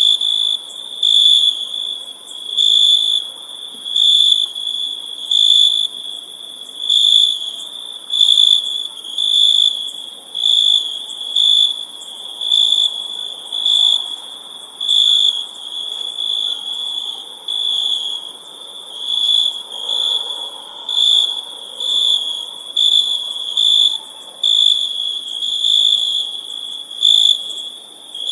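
Crickets chirping at night in a continuous high-pitched trill that swells in regular pulses a little under once a second, over faint background hiss.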